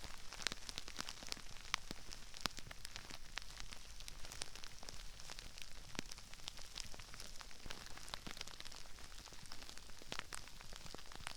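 Crispy rice crackling and popping: a dense, irregular scatter of small crisp clicks, with an occasional louder pop, spread all around the listener in binaural stereo.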